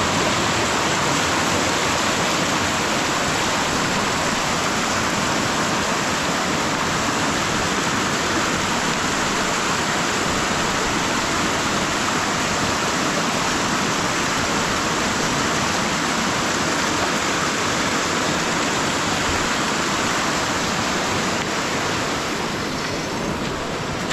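Floodwater rushing in a steady, continuous hiss, easing slightly near the end.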